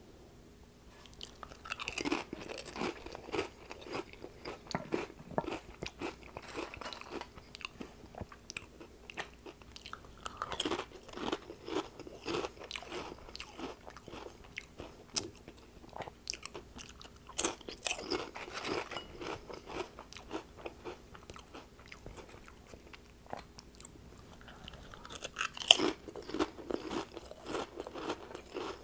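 A person biting and chewing ridged potato chips coated in sour cream dip: four rounds of crisp crunching, each starting with a sharp bite and trailing off into softer chewing.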